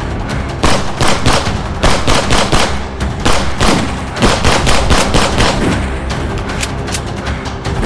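Rapid, machine-gun-like gunfire sound effects over background music, lasting about five seconds before the music carries on alone.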